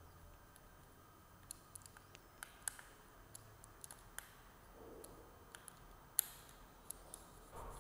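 Small screwdriver driving screws to fix a plastic quadcopter arm to the frame's circuit-board plate: faint, irregular clicks and ticks of the screw and the handled parts, the sharpest about six seconds in.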